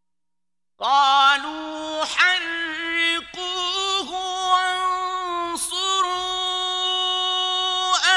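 A male Quran reciter chanting in the melodic mujawwad style: after a short silence, a long, high vocal line starts about a second in, with held notes decorated by quick wavering turns and a few short breaks.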